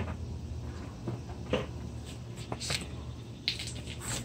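A few faint, scattered clicks and scuffs of small parts and tools being handled as a person gets down to work under a car, over a steady low hum.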